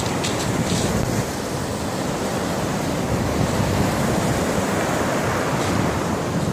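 Surf breaking and washing up a pebble beach, a steady rushing hiss, with wind buffeting the microphone in a low rumble.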